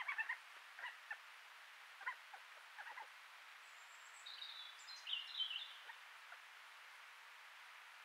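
A badger scratching and rustling in dry leaves and soil at a sett entrance: a run of short crackles in the first three seconds. From about three and a half to six seconds a high, thin call is heard, made of several short stepped notes.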